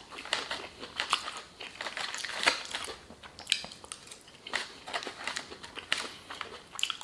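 Close-miked mukbang eating sounds: chewing with irregular small clicks and crinkles.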